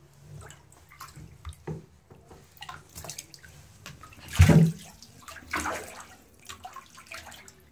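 Shallow water splashing and sloshing in a bathtub as a plastic cup is moved through it: a series of short splashes, the loudest about halfway through.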